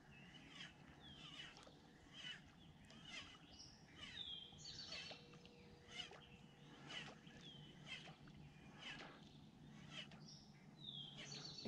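Faint birdsong: scattered short high chirps with a downward-sliding call repeated every second or two.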